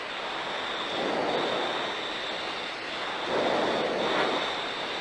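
Steady rushing noise inside an F-5 fighter's cockpit, with a thin high whine, swelling louder about a second in and again about three and a half seconds in.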